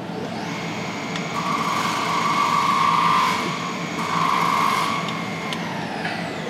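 A small motor whining steadily. It spins up shortly after the start, runs for about five seconds, then winds down with a falling pitch near the end.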